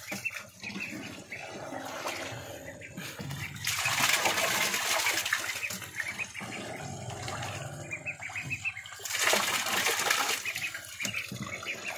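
Ducklings splashing and dabbling in shallow water, with louder bouts of splashing about four seconds in and again near nine seconds.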